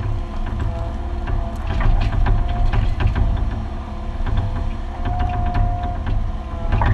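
Mini excavator's diesel engine running steadily under load, heard from inside the cab, with a brief higher hydraulic whine about two and a half seconds in and again for about a second near the end. Scattered clicks and knocks from the machine's linkage and bucket run throughout.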